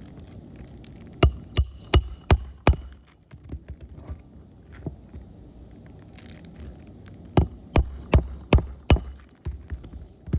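A hammer driving roofing nails into a replacement 3-tab shingle with a nailing tool (a 'snake') slid under the shingle above. There are two quick runs of about five sharp, slightly ringing blows, with lighter taps between them.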